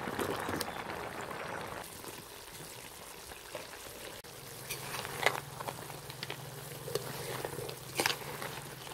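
Pot of horn snails simmering in coconut milk, a bubbling hiss that is loudest over the first two seconds. About four seconds in a low steady hum starts, with a few sharp clicks over it.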